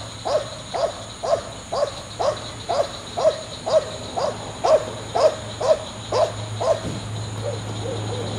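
Belgian Malinois barking steadily, about two barks a second, dropping to a few weaker barks near the end.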